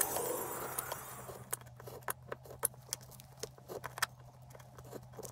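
Craft knife trimming glued paper from the edges of a small wooden block: irregular sharp ticks and small scrapes, a few a second, starting after a fading hiss in the first second.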